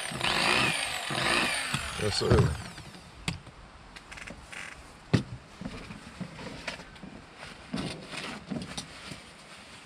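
Electric fillet knife running as it saws through tilapia fillets on a plastic cutting board, its whine shifting in pitch with the cut, stopping about two and a half seconds in. After it stops there are a few light knocks and clicks.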